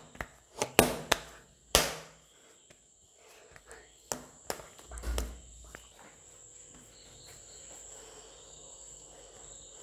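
Hands kneading a ball of maida dough on a table top: a quick run of knocks and thumps as the dough is pressed and pushed against the table, then a few softer pats about four to five seconds in, then faint hiss.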